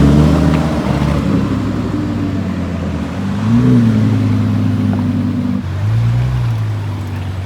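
Car engine running with two short throttle blips, each a brief rise and fall in pitch, about three and a half and six seconds in.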